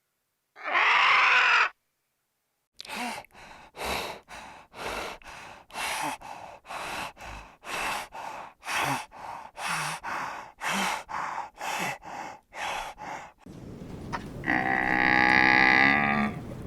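Farm animals calling in separate clips: one loud call about half a second in, a run of about eighteen short calls at roughly two a second, then one longer call near the end.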